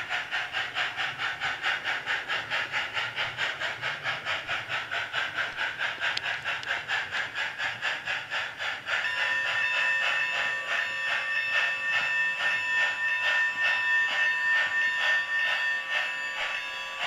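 Sound unit in a 7mm-scale Mudhen steam locomotive model's tender playing simulated steam exhaust chuffs at an even pace, about five a second, through a small speaker. About halfway through, the unit's locomotive bell starts ringing over the chuffs, the bell that can sound automatically when the loco runs at low speed.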